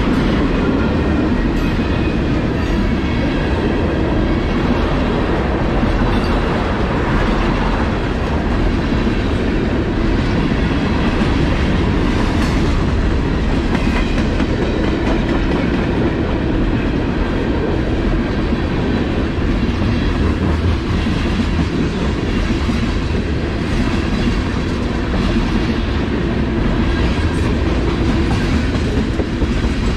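CSX freight train rolling past, a steady, loud sound of steel wheels running on the rails, with faint high ringing from the wheels.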